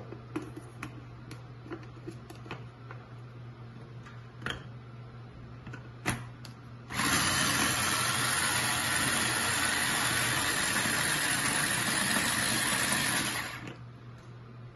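Electric mini food chopper running steadily for about six seconds, chopping onion in its glass bowl, then stopping. Before it starts, a few light clicks and knocks as the motor head is handled on the jar.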